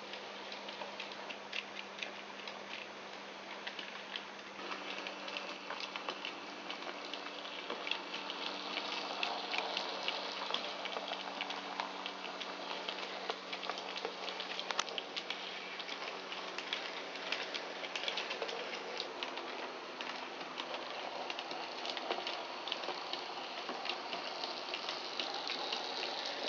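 N gauge model trains running on sectional track: a rapid, continuous patter of small wheels clicking over the rail joints, over the steady hum of the locomotives' small electric motors.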